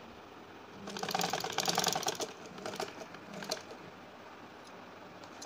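Sewing machine stitching a fabric strip onto a seam: a quick run of fast, even clicks from about a second in, then a few short stitching bursts that stop before four seconds.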